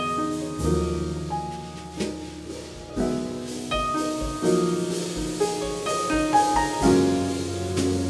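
Jazz piano trio playing: upright piano chords and melody over wire brushes on the snare drum and double bass, with a long low bowed double-bass note coming in about a second before the end.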